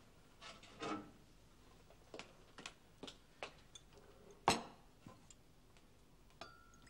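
Light clinks and knocks of crockery being handled and set down on a wooden table, with a run of soft ticks and one sharper knock about four and a half seconds in as a pot or jug is put down.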